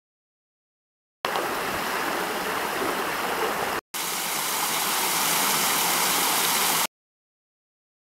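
Water rushing down a small stepped cascade between rocks, then, after a brief break, a small waterfall splashing over a boulder into a pool, a little louder and brighter. The sound starts about a second in and cuts off abruptly near the end.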